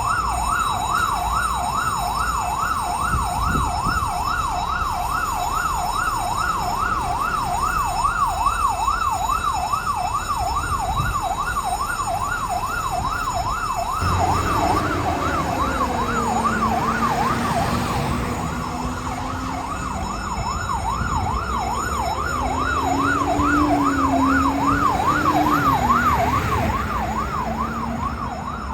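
Fire engine siren sounding in a fast rising-and-falling sweep, about two sweeps a second. About halfway through, a second, lower wavering tone joins it.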